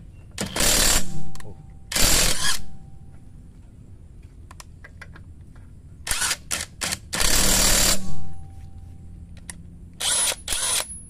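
Cordless 800 N·m impact wrench working a car's wheel lug nuts in short runs of rapid hammering: two runs about a second long near the start, a few quick bursts and a longer run around the middle, and two brief bursts near the end.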